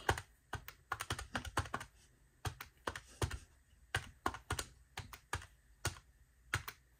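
Plastic keys of a desktop calculator being pressed one after another, about two or three presses a second in an uneven rhythm, as a column of figures is keyed in again from the top.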